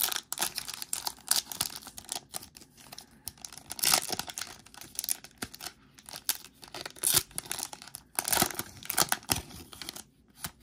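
Foil wrapper of a Panini Mosaic trading-card pack being torn open and crinkled by hand: irregular crackling and tearing, with louder rips about four seconds in and again around eight to nine seconds.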